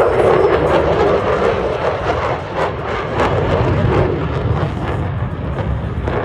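Loud jet noise from an F-35B's Pratt & Whitney F135 engine, a rough, crackling rush that is loudest in the first second and eases slightly after.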